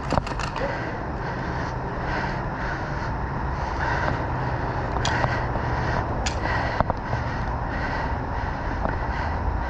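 Steady outdoor noise with a few sharp cracks of airsoft gunfire: a quick run of about four right at the start, then single shots about five, six and seven seconds in.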